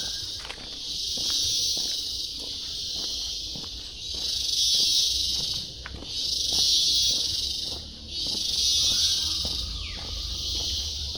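Rainforest insects buzzing in loud, high-pitched swells of a second or two each, rising and fading again and again. Short bird calls come in near the start and again near the end.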